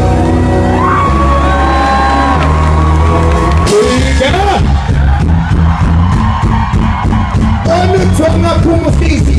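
Live pop band playing loud through a concert PA, with a singer on the microphone. A long held note starts about a second in, and rhythmic sung phrases come back near the end.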